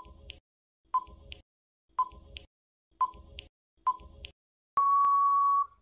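Quiz countdown timer sound effect: five short beeps, one a second, as the count runs down. Near the end comes a longer steady beep lasting about a second, marking time up.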